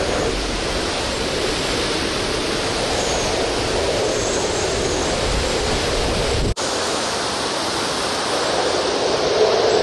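Hurricane Dorian's wind blowing hard in a steady, loud rush, with driven rain. The sound cuts out for an instant about six and a half seconds in, and after that the low rumble is weaker.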